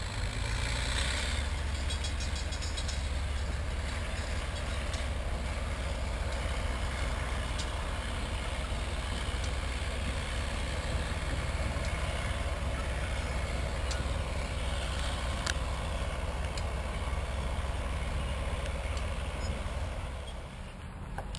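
Diesel switcher locomotive's engine running with a steady low rumble, with a brief burst of hiss about a second in; the rumble eases off near the end.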